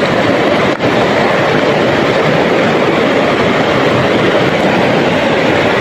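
Steady loud rush of a river flowing among boulders, the water churning around a hand reaching into the shallows.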